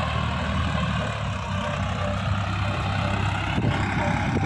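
Swaraj tractor's diesel engine running steadily as it pulls a trolley heaped with soil, with an even low engine note throughout.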